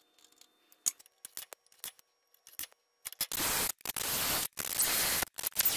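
Light clicks and knocks as a steel caster mounting plate is set on the tube. Then, from about three seconds in, a cordless drill bores holes into steel rectangular tube in runs of under a second with short pauses between them.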